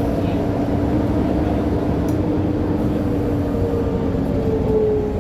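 Mercedes-Benz O500UA articulated bus's diesel engine running steadily, with a whine whose pitch rises a little near the end.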